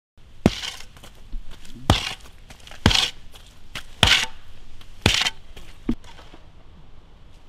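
A series of six sharp knocks, roughly a second apart, each followed by a short crunch or scrape, over a low rumble.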